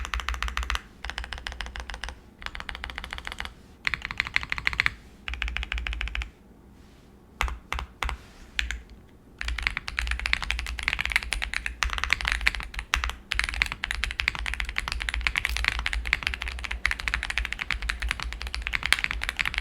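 Mechanical keyboard with Boba U4T tactile switches and Mr. Suit keycaps being typed on. Short bursts of rapid keystrokes with brief pauses, a few scattered keystrokes in a lull about six seconds in, then steady fast typing from about ten seconds on.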